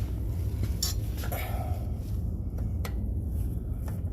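A few light metallic clicks and taps of hand tools against the truck's underside as a socket is tried on a starter bolt, over a steady low rumble.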